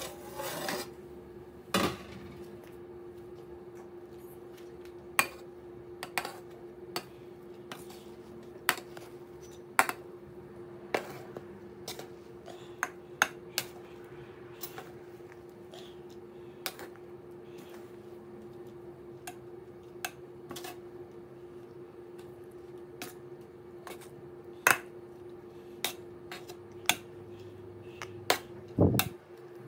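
A white plastic scoop knocking and scraping against the side of a large aluminium cooking pot as cooked rice is turned over. It makes irregular sharp clicks about once a second over a steady hum, with a short clatter at the start as the pot's metal lid is moved.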